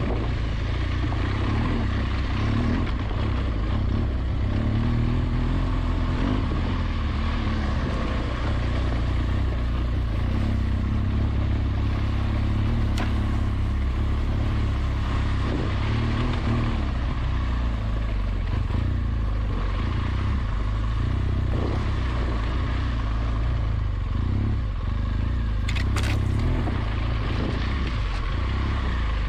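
BMW R1200GS Adventure's flat-twin engine running steadily at low revs while the motorcycle rides over rough trail, with a steady rumble and no pauses.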